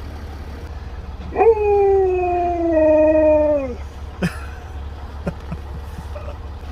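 A husky howls once: a long call of about two seconds that starts about a second and a half in and slides slowly down in pitch, asking for a treat. A sharp click follows, over a steady low hum.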